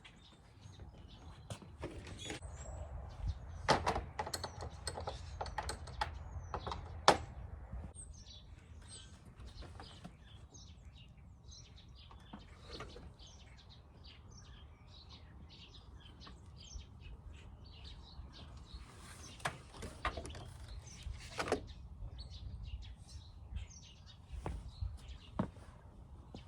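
Irregular clicks and knocks of hand tools and metal parts being handled during belt work on a vehicle engine that is switched off, with birds chirping throughout.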